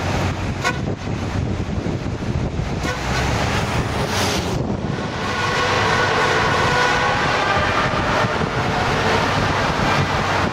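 Road, wind and engine noise from riding in a 1950s Ford Fairlane among other classic cars. About five seconds in it grows louder and echoes as the car drives into a tunnel.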